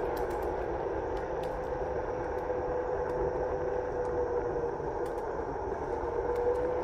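Onewheel electric skateboard rolling along an asphalt path: the hub motor whines at a fairly steady pitch over the rumble of the tyre on the pavement, with a few faint ticks.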